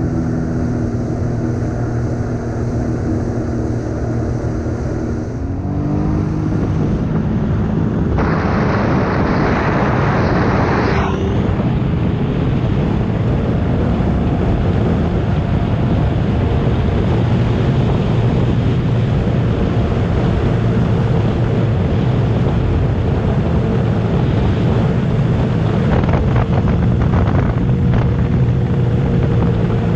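Sea-Doo personal watercraft's engine running at speed, with wind buffeting the microphone and water rushing past. The engine note rises around six seconds in, and a burst of hissing noise follows from about eight to eleven seconds in, before a steady run again.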